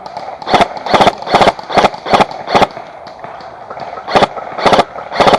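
Airsoft gun firing short full-auto bursts, each a quick rattle of shots: six bursts in quick succession, a pause of over a second, then three more near the end.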